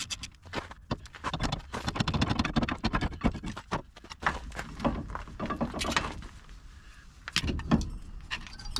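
Metal tools and parts clattering and rattling as they are handled, then a few separate knocks.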